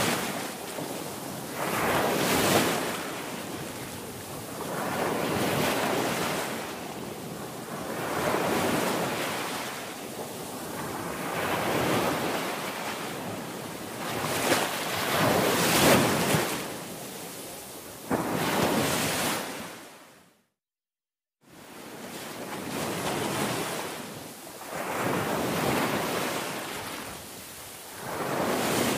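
Ocean waves washing in and fading in slow swells every few seconds. The sound cuts out completely for about a second two-thirds of the way through.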